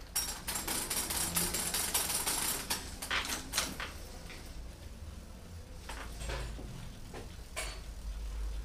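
A quick run of sharp metal clicks and rattles from hands working on a road bike in a repair stand, thinning out to a few single clicks later on.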